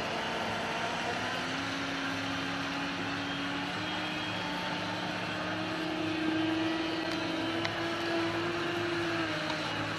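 Radio-controlled model boat motor running, its pitch rising slowly over several seconds and falling away near the end, over a steady low hum.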